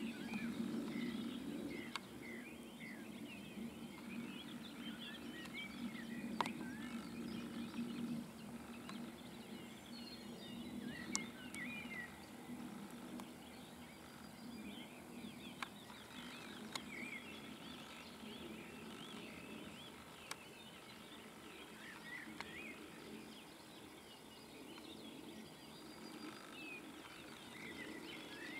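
Songbirds singing in the woods around a meadow: many short chirps and whistled phrases overlapping in a steady chorus, with a few sharp faint clicks. A low hum underneath fades out about eight seconds in.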